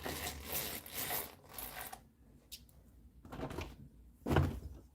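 A window being opened: rattling and clattering of the latch and frame, a click, then a louder knock about four and a half seconds in.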